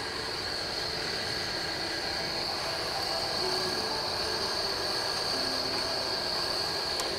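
Steady mechanical running noise from a nearby Ferris wheel, a constant hiss with a high-pitched whine over it; a faint click near the end.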